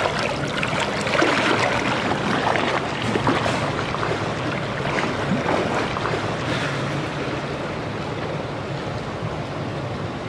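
Pool water splashing and sloshing as a person plunges his head under, settling into a steady wash of lapping water.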